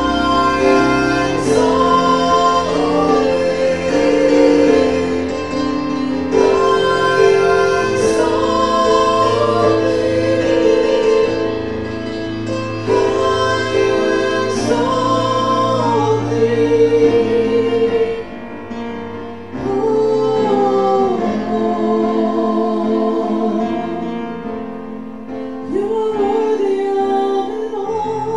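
Worship song: a woman singing with instrumental accompaniment.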